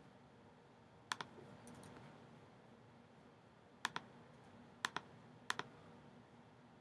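Four sharp double clicks, spread over a few seconds, with a few fainter clicks after the first, over a low steady room hum.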